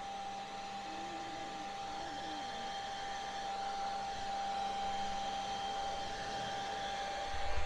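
Handheld blow dryer running steadily, a constant airy hum with a thin steady whine.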